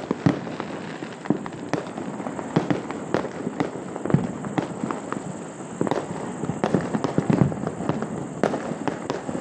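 Many fireworks and firecrackers going off at once: a steady crackle with sharp bangs at irregular intervals, several a second.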